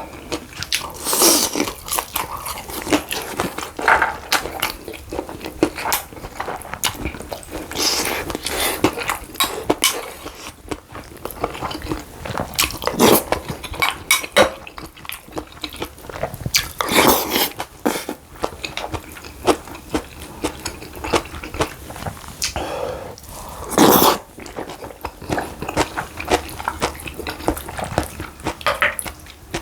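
Close-miked eating sounds: chewing and biting with irregular small clicks, broken by several louder noisy mouthfuls, the loudest near the end.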